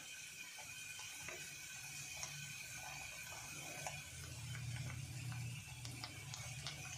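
Metal spoon scraping and clicking irregularly against an aluminium pan while pieces of nux vomica seed are stirred in hot ghee, over a faint steady low hum.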